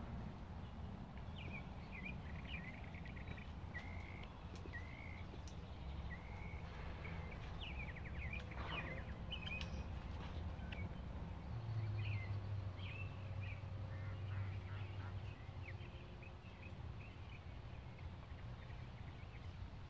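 Songbirds chirping and singing over a low steady rumble, with a low steady hum for a few seconds around the middle.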